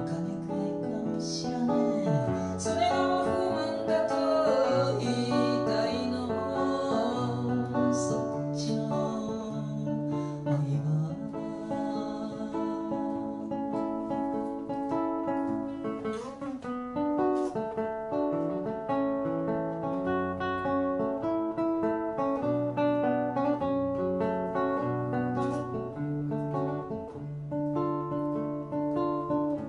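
A woman singing to her own acoustic guitar, with picked chords ringing in a steady rhythm. The voice is heard in roughly the first half; after that the guitar carries on alone.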